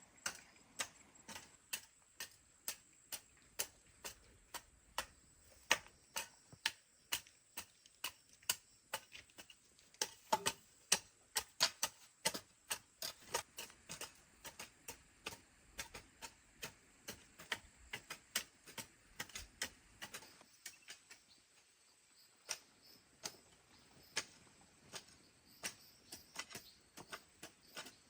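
Hoe blade chopping into garden soil: a long run of short, sharp strikes at roughly one to two a second, thinning out a little after about twenty seconds.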